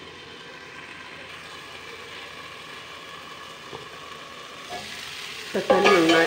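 Onion and tomato masala sizzling quietly under a steel lid on a frying pan. Near the end the steel lid comes off the pan with a loud, ringing metallic scrape.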